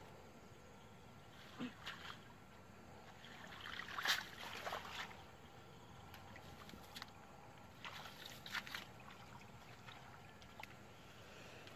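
Water splashing and dripping as a wet cast net is pulled through shallow water and gathered up, in a few short bursts, the loudest about four seconds in.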